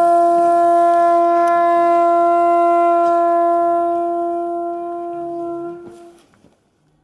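A white conch shell trumpet blown by a man, holding one long steady note that fades and stops about six seconds in.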